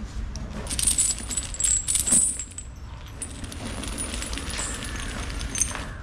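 Metal jangling and clinking in quick clusters, densest in the first couple of seconds, then lighter clinks, over a steady low rumble.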